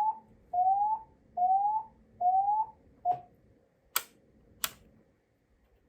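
Bosch Praesideo public address system sounding an alarm tone made of short rising sweeps repeating a little over once a second. About three seconds in the tone is cut off short, and two sharp clicks follow.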